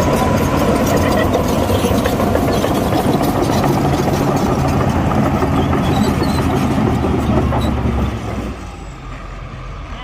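Heavy earthmoving machine's diesel engine running close by, with clattering knocks over it. It drops away sharply about eight seconds in, leaving a quieter rumble.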